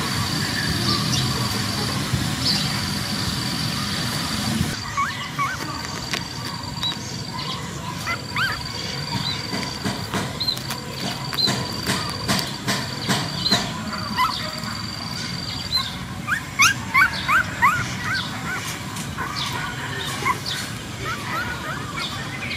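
Newborn puppies squeaking and whimpering as they crawl to nurse from their mother: short, high, rising squeaks, coming thick and fast about three-quarters of the way through. A repeated high, steady trill sounds in the background.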